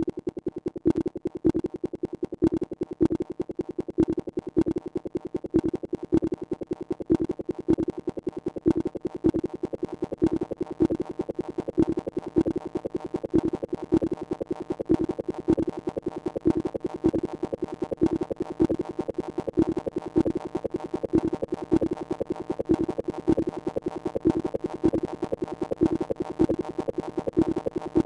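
Electronic music: an acid-style synthesizer line repeating one fast pattern, pulsing about twice a second, with no drums.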